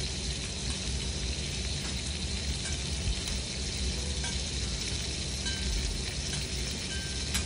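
Wagyu beef sizzling steadily on a steel teppanyaki griddle, with a few light metal clicks from the chef's knife and spatula on the plate.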